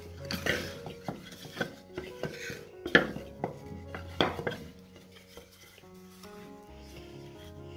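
Pieces of scrap wood knocked and clattered together as they are fitted by hand, a string of sharp knocks with the loudest about three seconds in and another a second later. Quiet background music plays underneath.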